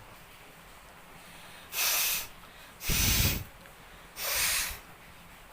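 A person blowing her nose forcefully three times, each blast lasting about half a second, the middle one the strongest and deepest.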